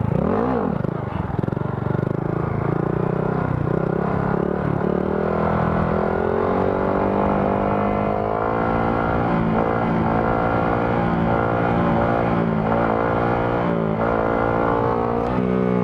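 Honda Grom's single-cylinder engine running while the bike is ridden. The revs dip and pick up again about half a second in, then hold fairly steady with small wavers in throttle. Low rumble of wind on the microphone underneath.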